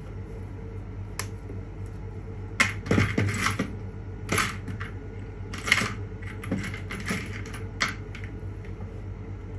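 Metal rotary-tool engraving bits clinking and rattling against each other in a plastic organiser box as a hand sorts through them, in several short bursts of clatter from about two and a half seconds in.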